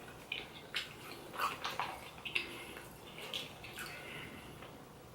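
Soft wet smacks and small clicks of eating and handling buttery seafood, several a second, thinning out near the end.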